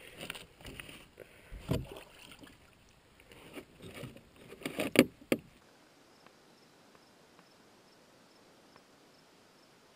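Handling a landed brook trout in a landing net on a canoe floor: irregular knocks, scrapes and net rustles against the hull, loudest in a sharp knock about five seconds in. After a sudden cut the sound drops to faint outdoor quiet with a faint insect chirp repeating at an even pace.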